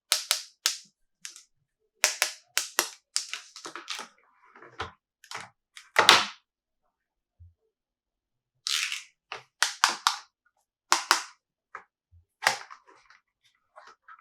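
Sharp, irregular taps and clicks of a Lightning McQueen toy car being tapped and handled, coming in quick clusters with a pause of about two seconds in the middle.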